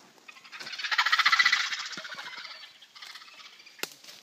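An animal call, a rapid pulsing buzz that swells to a peak about a second in and fades over the next second and a half. Soft crackles of dry leaf litter and a sharp click near the end.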